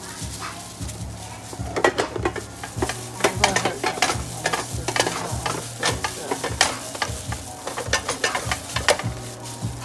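A plastic-gloved hand kneading seasoned raw chicken and beef: crinkling plastic and wet squishing of the meat in irregular crackly bursts, busier and louder from about two seconds in.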